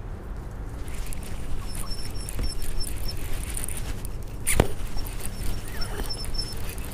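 Rustling and knocking against a body-mounted camera, with one sharp click about four and a half seconds in. Two quick runs of short, high-pitched chirps come and go over it.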